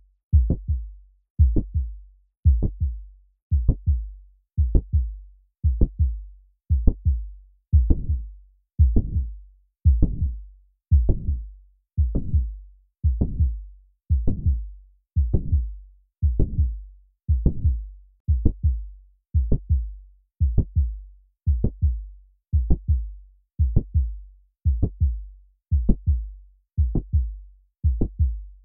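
Heart sounds of mitral valve prolapse as heard through a stethoscope, a steady heartbeat just under one beat a second. Each beat carries the first heart sound, a mid-systolic click and the second heart sound, with a short late systolic murmur from mitral regurgitation leading into the second sound.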